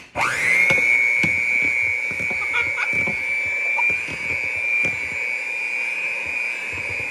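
Electric mixer switched on: its motor spins up within a fraction of a second to a steady high whine and keeps running, with scattered knocks over it.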